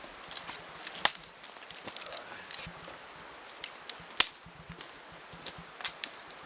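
Dry sticks being snapped by hand: a string of sharp, separate cracks, the two loudest about a second in and about four seconds in.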